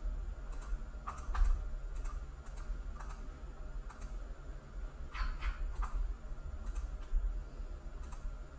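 Irregular, separate clicks of a computer keyboard and mouse, about one or two a second, over a faint low hum.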